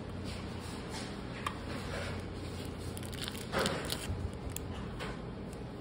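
Quiet handling noises: soft rustles and a few faint clicks over a steady low hum, with a slightly louder rustle about three and a half seconds in.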